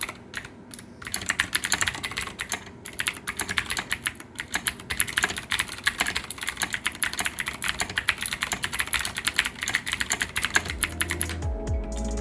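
Typing on a Leopold FC750R mechanical keyboard with blue switches and SA-profile PBT keycaps: a fast, uneven run of key clicks, with a short pause about half a second in. Near the end the typing stops and music with a heavy bass comes in.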